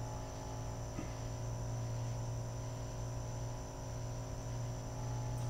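Steady electrical hum with a faint high whine, unchanging throughout, and a soft click about a second in.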